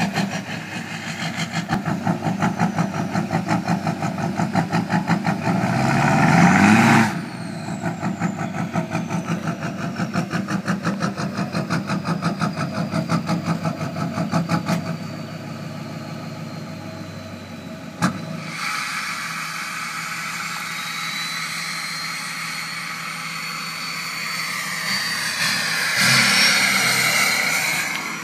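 2006 GMC Duramax 6.6-litre V8 turbodiesel idling with a loping tune, its exhaust pulsing unevenly, revved up briefly around seven seconds in. About eighteen seconds in a sharp click is followed by a smoother idle with a high turbocharger whistle gliding up and down in pitch.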